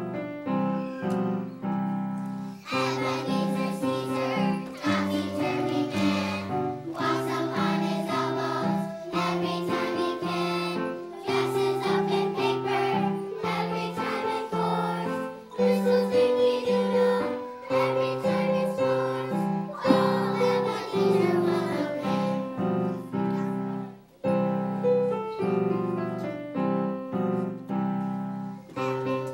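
A choir of young children singing a song in unison with piano accompaniment, entering after a short piano introduction of about two and a half seconds.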